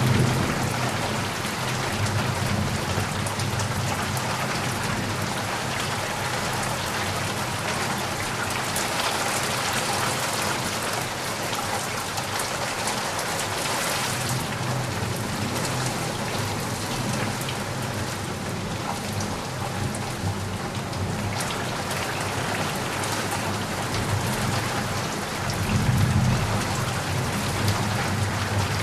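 Steady heavy rain pattering on surfaces, with a low rumble of thunder swelling near the end.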